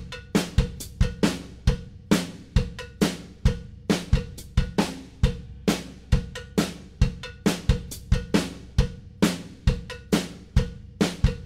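Drum-kit beat playing alone as background music: a steady rock pattern of kick, snare and cymbal hits, about three a second.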